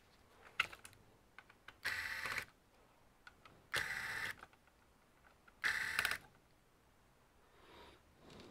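Small electric screwdriver running in three short bursts of about half a second each, taking out the CPU heatsink screws on a laptop motherboard, with a few light clicks of the screws and tools in between.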